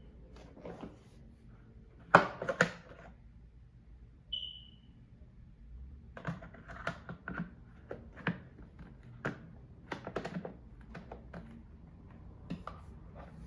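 Unboxing handling of the vacuum's box and plastic parts: scattered irregular clicks, knocks and rustles, with a brief high squeak about four seconds in.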